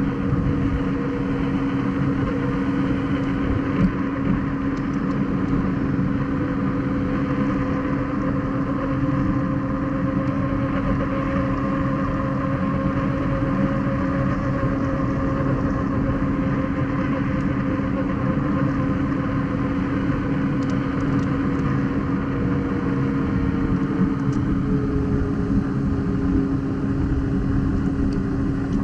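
Begode EXN electric unicycle cruising: the hub motor gives a steady whine over the tyre's rolling rumble on asphalt. The whine's pitch eases down a little near the end as the speed changes.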